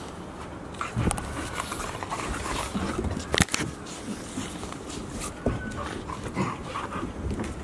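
Golden retriever puppies play-fighting: irregular scuffling of paws on a hard floor with short dog noises, and one sharp knock about halfway through.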